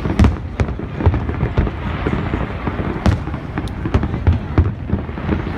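Fireworks display: shells bursting in quick succession, a continuous barrage of bangs and crackle, with sharp loud bangs just after the start and about three seconds in.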